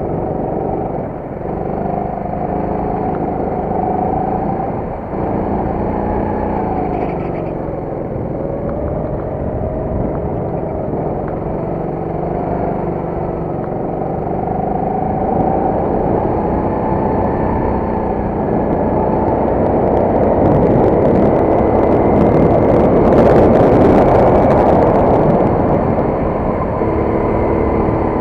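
Go-kart engine heard from on board while lapping, its pitch climbing under throttle and falling back as it lifts for corners, over and over. About three quarters of the way through a loud rushing noise swells up over the engine for several seconds.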